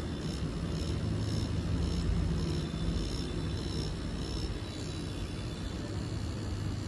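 Permanent-makeup tattoo machine running with a steady low hum.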